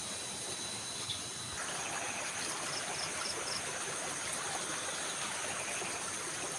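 Steady rush of flowing stream water with insects trilling in high, steady tones; a short run of four chirps comes a few seconds in.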